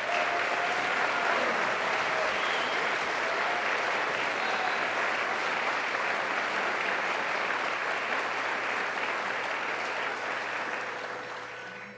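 Audience applauding, steady and then tapering off near the end.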